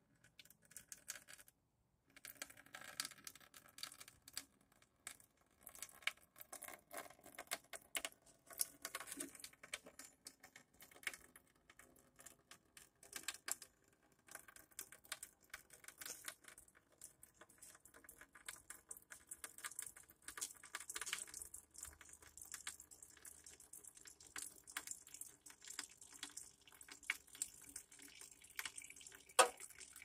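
Faint, irregular clicks, taps and rattles of hand-tool work on a car, with some splashy noisy stretches and one sharp knock near the end.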